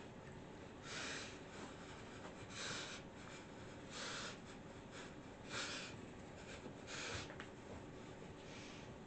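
A person dancing with no music audible: six short hissy breaths and rustles, about one every second and a half, over a faint steady hum of room tone.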